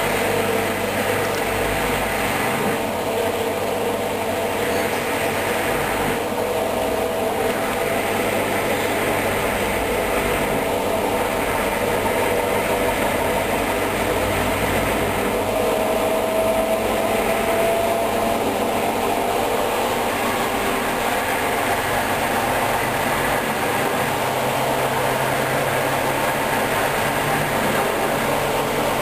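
Hoover Dynamic DYN 10124 DP washing machine drum spinning at high speed, a steady mechanical hum with a faint whine held at one pitch.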